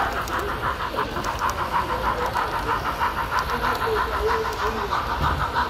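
Model steam locomotive's sound system chuffing rapidly and evenly, about eight chuffs a second, with voices murmuring underneath.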